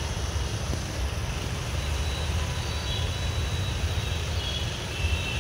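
Low, choppy outdoor rumble with no speech, with faint thin high tones appearing in the second half.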